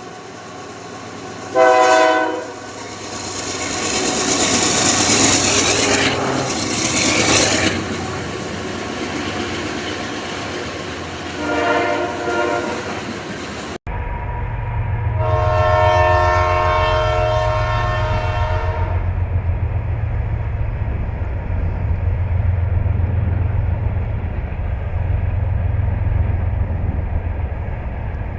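Two train recordings joined by a sudden cut. In the first, a train horn gives a short blast, a loud rushing noise follows, and the horn sounds a second short blast. In the second, a train's steady low rumble runs under one long horn blast of about four seconds.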